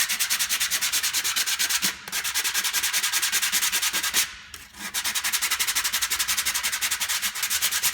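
Coarse 80-grit sandpaper on a sanding block rubbed rapidly back and forth over a wooden spatula, in fast even strokes with two short breaks, about two seconds and four and a half seconds in.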